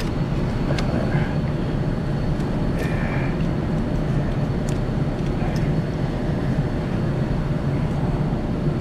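Steady low mechanical drone at a constant level, with a few faint clicks and knocks of parts being handled.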